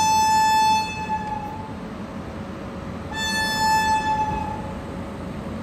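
Electric locomotive horn sounding two steady single-pitch blasts. The first is already sounding and dies away about a second and a half in; the second starts about three seconds in and lasts about a second and a half. A steady train rumble runs underneath.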